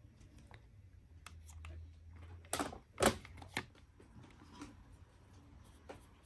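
Light knocks and clicks from plastic toy pieces and dough tubs being handled on a table, the loudest three close together about two and a half to three and a half seconds in.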